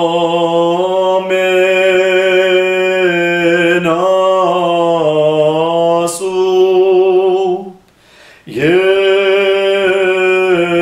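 A man singing slowly and unaccompanied, in long held notes. The notes waver a little around five to seven seconds in, and he pauses for breath about eight seconds in.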